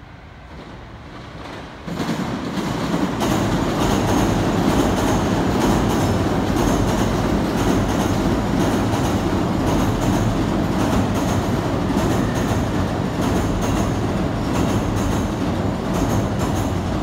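JR Tokaido Line electric commuter train in orange-and-green stripes running past close by. A loud rumble comes in suddenly about two seconds in and holds steady, with the wheels clacking over the rail joints in a regular beat.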